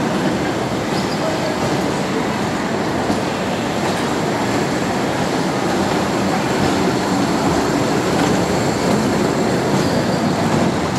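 Kiddie-ride train running steadily around its track, a continuous even noise of the cars and wheels on the rails.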